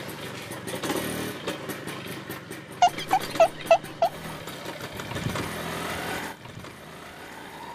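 TVS XL100 moped's single-cylinder four-stroke engine running while riding, a steady low hum. Partway through come five short high beeps in quick succession, and the sound drops in level about six seconds in.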